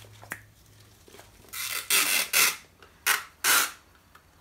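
Clear adhesive tape being pulled off the roll in several short, loud rips, starting about one and a half seconds in.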